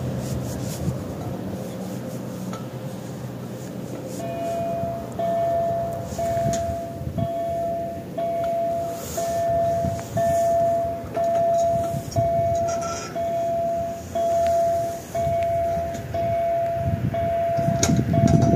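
Railway level-crossing warning signal: an electronic tone that starts about four seconds in and repeats about once a second, sounding as the crossing closes and the barriers come down for an approaching train. A low rumble grows louder near the end.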